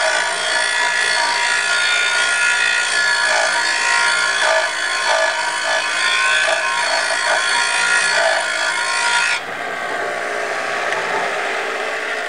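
Bench grinder's wire wheel running against an oil pan's sealing flange, scouring off old silicone sealant: a steady whine with scratchy grinding. It cuts off about nine seconds in, leaving a fainter steady sound.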